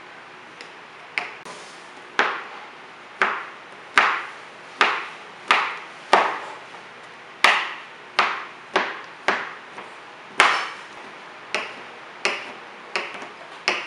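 Chef's knife chopping white chocolate discs on a cutting board: a run of sharp knocks, one or two a second at an uneven pace, each blade strike dying away quickly.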